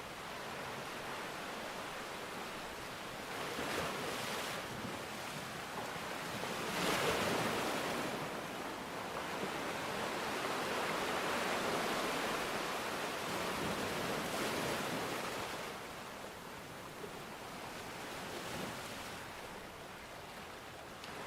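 Ocean surf: waves washing in and drawing back as a rushing noise, swelling about four and seven seconds in and again in a long surge through the middle before ebbing.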